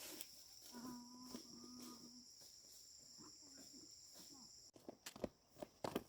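Faint, steady high insect chorus of crickets or cicadas. About a second in there is a brief pitched animal call. The chorus cuts off suddenly near the end, and a few soft knocks follow.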